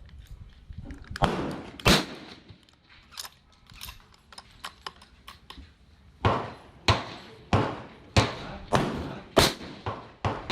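Gunshots on a shooting range: two sharp reports about a second and two seconds in, small clicks and knocks in between, then a rapid string of about seven shots a little over half a second apart in the second half, each with a short echoing tail.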